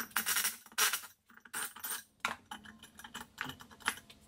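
Metal engine parts clinking and clattering on a steel workbench as connecting rod caps, bolts and rods are taken off a crankshaft. Two longer, louder rasps come in the first second, then a run of lighter, irregular clinks.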